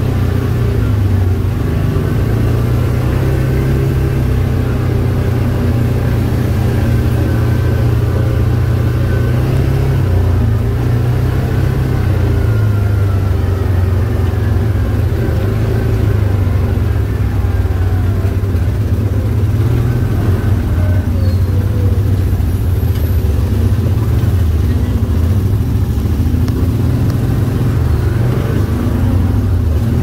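Side-by-side UTV engine running steadily while driving along a dirt trail: a loud, continuous low drone whose pitch drifts slightly up and down with the throttle.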